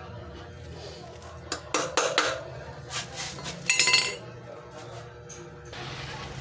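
Metal tools and hub parts clinking and knocking together during wheel hub work: a burst of sharp metallic clanks in the middle, some of them ringing briefly.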